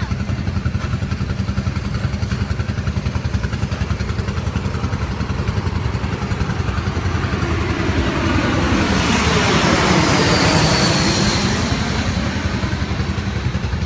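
A small engine running steadily with a low hum. For a few seconds in the middle, a louder rushing swell comes in, its pitch dipping and then rising again.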